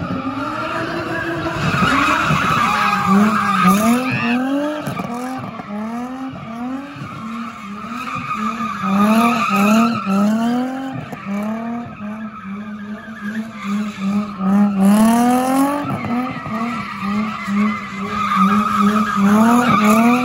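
Nissan 350Z's V6 engine revving up again and again in quick surges while its rear tyres squeal and skid through a drift. The tyre squeal swells loudest about two seconds in and again near the middle.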